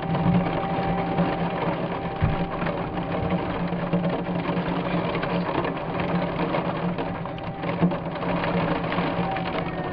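Heavy thunderstorm rain, a steady dense patter with a constant low hum under it.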